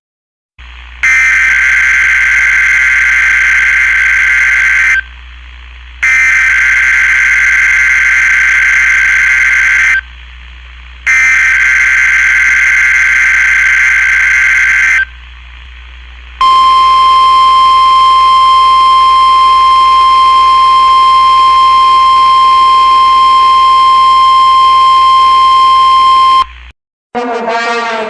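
An electronic buzzer sounds three times, each buzz about four seconds long with a second's break between. It is followed by a steady high beep tone held for about ten seconds that cuts off suddenly.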